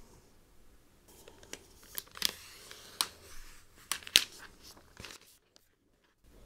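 Faint rustling with several sharp crinkles and clicks as the thin translucent protective wrap sheet is pulled off a new laptop. It drops to a moment of dead silence near the end.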